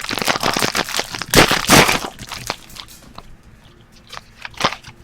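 Trading-card pack wrapper being torn open and crinkled, loudest near the middle, then a few light clicks and rustles as the cards are handled.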